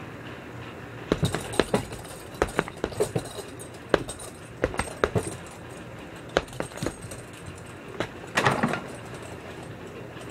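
Boxing-glove punches landing on a hanging heavy bag in irregular flurries, with the bag's chain jingling on the hits, over a steady low hum. The punching starts about a second in, and the loudest flurry comes near the end.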